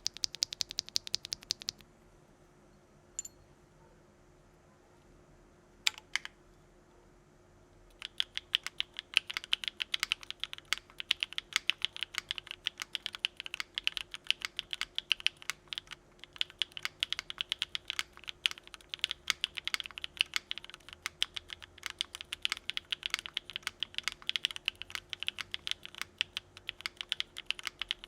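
Typing on a Geonworks Frog mechanical keyboard with lubed Gateron Modern Grey linear switches in an aluminium plate and CRP Desko keycaps. A quick burst of keystrokes, a few seconds of near pause with a couple of single key presses, then steady fast typing from about eight seconds in.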